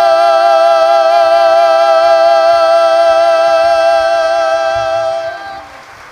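A man and a woman singing a ranchera duet, holding one long final note together with a wide vibrato. The note cuts off about five and a half seconds in, and faint crowd noise is left.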